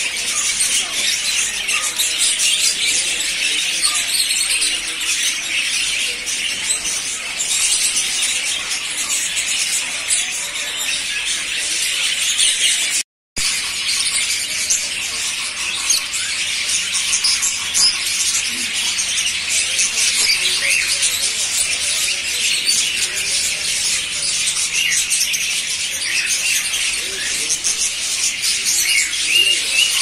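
Dense, continuous chirping and chattering of many caged small parrots, budgerigars and lovebirds, a shrill wall of overlapping calls, broken once by a brief silence about thirteen seconds in.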